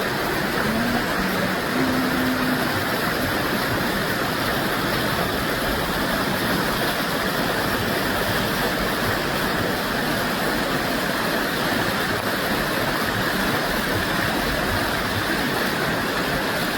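Steady, even rushing noise with no break.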